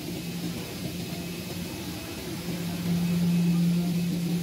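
CNC digital fabric cutting machine running as it cuts PVC tarpaulin: a steady mechanical hum with a low tone that grows louder about three seconds in.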